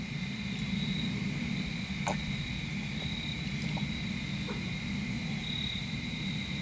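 Steady night chorus of crickets trilling at two high pitches, over a low steady rumble, with a couple of faint clicks.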